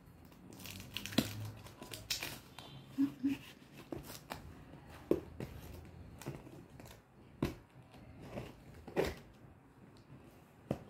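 Scissors scraping and cutting through the packing tape of a cardboard box, with the box being handled and tapped. The sound is an irregular series of sharp clicks and rasping scrapes a second or so apart.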